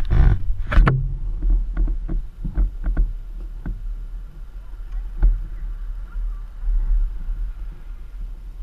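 Handling noise from a small hand-held camera: a loud rustle in the first second, then scattered knocks and rubbing from the fingers on the case, over a steady low wind rumble on the microphone.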